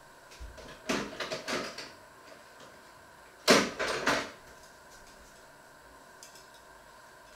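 Kitchen clatter from someone working off-camera: a quick run of small knocks and rattles about a second in, then a louder sharp knock followed by a few lighter ones about three and a half seconds in, like a cupboard or drawer being handled.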